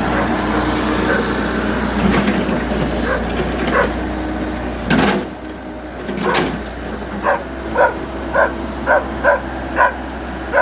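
Komatsu excavator's diesel engine running steadily while a dog barks. The barks come a few times at first, then as a quick run of short barks about twice a second from about seven seconds in.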